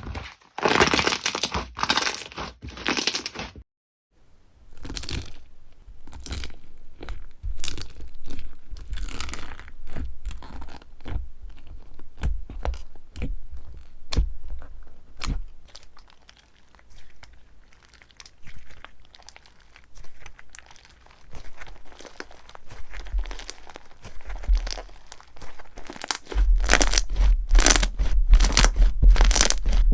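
Slime being squeezed, poked and pulled apart by hand: dense crackling, crunchy pops and sticky tearing, broken by a brief silence about four seconds in. Heavier low thumps from the handling come in near the end.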